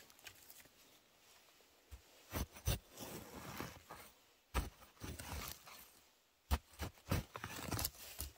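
Irregular crunches and rustles of a person moving over the forest floor, about eight sharper strikes in uneven rhythm, with the loudest a couple of seconds in and again after the middle.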